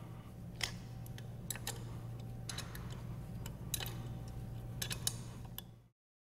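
Scattered light metallic clicks of a socket ratchet loosening the 7/16" bolts that hold a grinder pump's suction housing, over a low steady hum. The sound cuts out abruptly near the end.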